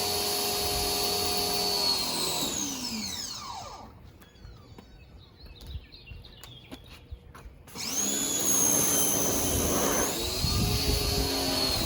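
Ryobi 1600 psi electric pressure washer's motor and pump running with a steady whine, then winding down in falling pitch about two seconds in as the trigger is let go. After a few seconds of quiet with faint clicks, it spins back up quickly near eight seconds and runs on steadily; the pump runs only while the trigger is held.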